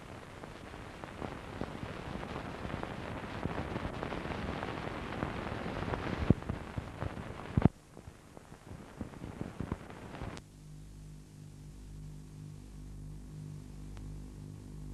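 Crackling hiss with scattered sharp pops, the worn soundtrack noise of old archival film. About ten seconds in it gives way to a steady low electrical hum.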